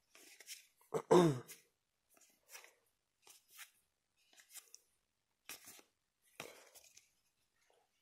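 Trading cards being slid one by one off a hand-held stack, a short faint swish roughly once a second. About a second in, a person briefly clears their throat, the loudest sound.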